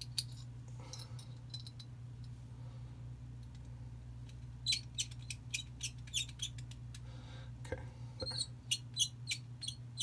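Small metal Zippo fuel-tank insert parts being handled and screwed together by hand: light, irregular clicks and ticks, mostly in the second half, over a steady low hum.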